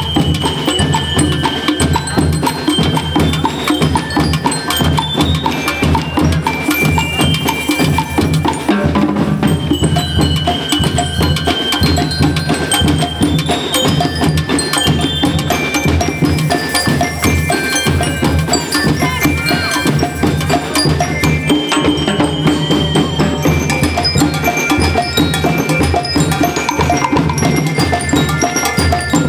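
School marching band playing a march: drums and bass drums keep up a steady rhythm under brass, with high ringing bell-like notes on top.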